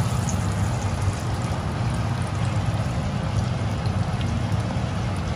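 Battered potato slices deep-frying in hot oil in a frying pan: a steady sizzle and bubbling, with a steady low hum underneath.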